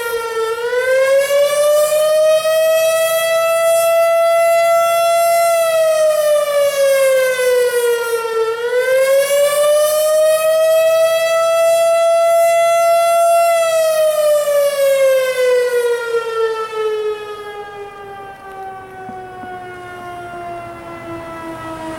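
Federal Signal Thunderbolt 1000 outdoor warning siren sounding its wailing attack signal. The pitch rises, holds and falls twice, then winds down in one long falling glide, dropping in loudness about three-quarters of the way through as the siren shuts down.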